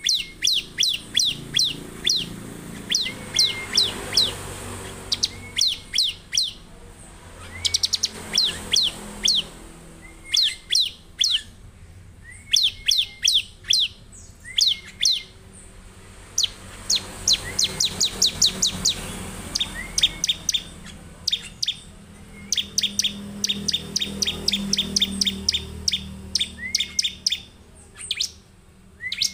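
Caged ciblek (bar-winged prinia) singing hard and continuously: quick runs of sharp, high ticking notes, each run led by a short lower note, repeated every second or two.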